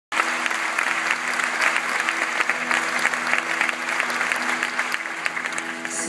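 Audience applauding, many hands clapping densely, with a steady held tone from the stage underneath.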